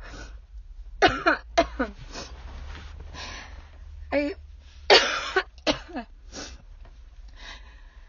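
A woman coughing from illness: a run of short, sudden coughs, some with a hoarse voiced edge, loudest about a second in and again about five seconds in.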